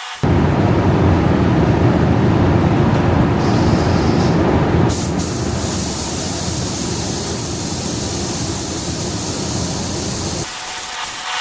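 Paint spray gun hissing with compressed air: a loud, steady hiss that changes abruptly about five seconds in to a thinner, higher hiss, and cuts off shortly before the end.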